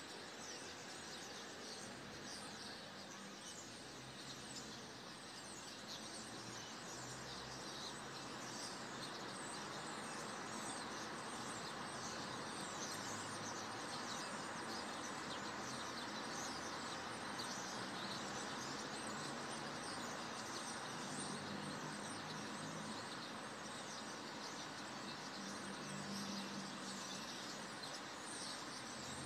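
Many birds chirping continuously in short overlapping calls, over a steady low background rumble.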